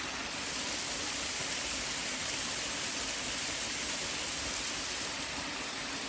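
Tall, narrow waterfall pouring onto rock ledges: a steady, even rush of falling water.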